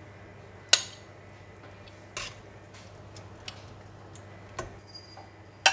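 Metal slotted spoon clinking against a stainless steel stockpot while chicken breast is lifted out of the stock: a sharp clink about a second in, a few fainter taps, and another sharp clink near the end.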